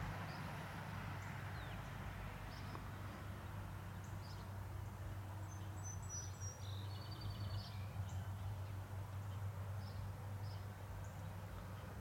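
Outdoor birdsong over a steady low hum: scattered short, high chirps, and a little past the middle a brief song phrase ending in a fast trill.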